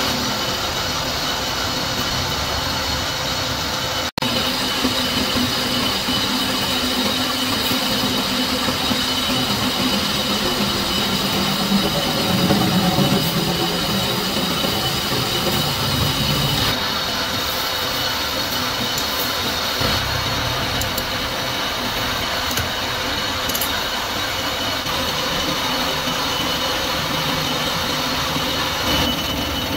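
Metal lathe running and cutting a disc of high-strength steel, the blank for a spur gear: a steady machine noise with a high whine over it. The sound cuts out for an instant about four seconds in.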